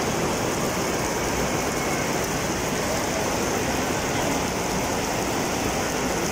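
Heavy rain falling steadily onto a wet stone courtyard, an even downpour hiss.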